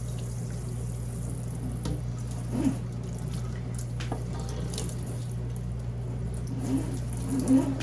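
Water running steadily from a kitchen sink sprayer at weak household water pressure, with a few light knocks at the sink.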